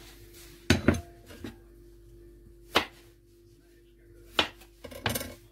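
Half a dozen sharp, separate knocks of kitchen work as cut carrot is handled and put into the pot, spaced irregularly over a faint steady hum.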